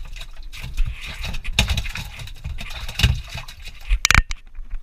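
Water sloshing and splashing in a boat's livewell as a hand moves through it, with a louder knock or splash about four seconds in.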